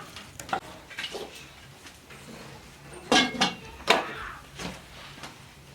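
Pots and dishes clattering: a few light clinks, then a cluster of sharper, louder knocks with brief ringing about three to four seconds in.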